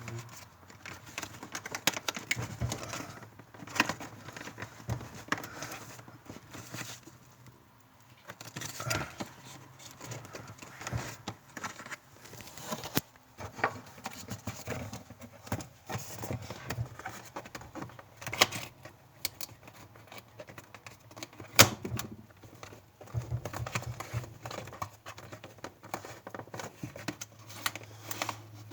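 Irregular clicks, taps and light knocks of hands and tools working on a refrigerator's inside parts during a repair.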